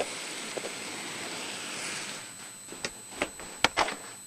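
Chicken strips frying in olive oil in a pan: a steady sizzle that fades after about two seconds, followed by a few sharp clicks of a utensil against the pan.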